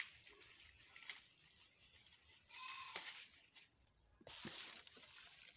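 Quiet garden sound: faint rustling of maize leaves, with a short, faint animal call about halfway through.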